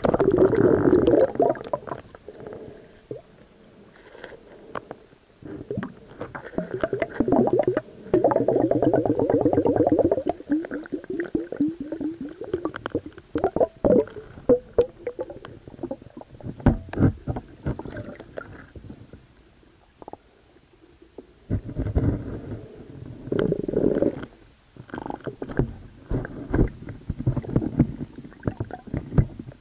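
Muffled underwater gurgling and rumbling around a camera on a speargun, coming in irregular bursts with many sharp clicks and knocks, and quieter stretches about four seconds in and again around twenty seconds in.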